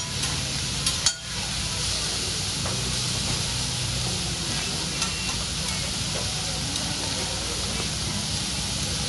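Vegetables sizzling on a hot steel hibachi griddle as they are stirred with a metal spatula. Sharp clicks of the spatula on the steel come now and then, the loudest about a second in.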